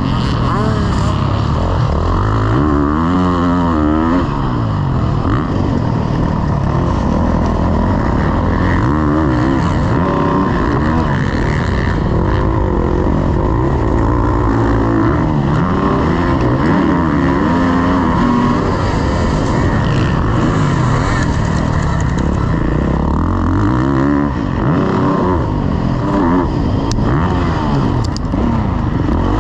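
Motocross bike engine revving hard while being ridden, its pitch climbing and dropping over and over as the throttle opens and closes through the gears.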